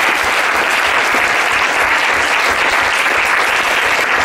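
Loud, steady applause from a roomful of people clapping.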